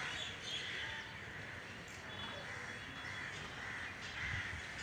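Crows cawing, several caws in a row, over steady outdoor background noise.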